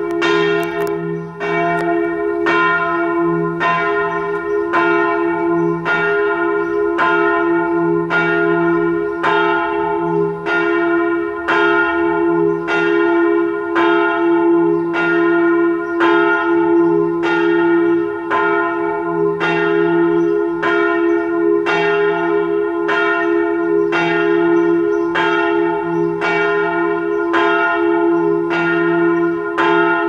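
Church tower bells in full peal, ringing for morning prayer. Strokes come roughly once a second and overlap on a continuous ringing hum.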